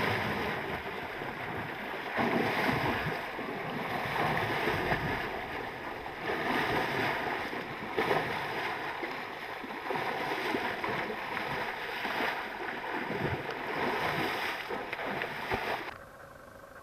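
Water splashing and sloshing as an African elephant wades through shallow river water close by, in irregular surges. The sound stops abruptly near the end.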